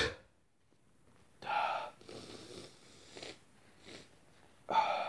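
A person's nose and breath: a sneeze cuts off at the start, then short noisy breaths through the nose about a second and a half in and again near the end, with quieter breathing between.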